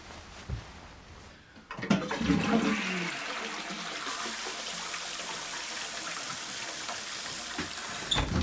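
A toilet flushing: a sudden rush and gurgle of water about two seconds in, settling into a steady hiss of running water, with a short thump near the end.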